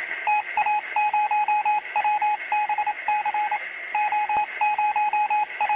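Electronic beeping from a radio broadcast, short and longer beeps at one steady pitch in uneven, Morse-code-like groups. It is heard through a small transistor radio's speaker, with a steady hiss under it.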